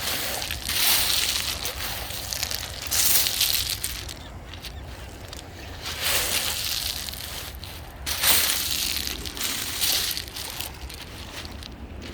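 Small Lake Michigan waves breaking and washing up the beach, a hissing wash every two to three seconds, over a steady low rumble of wind.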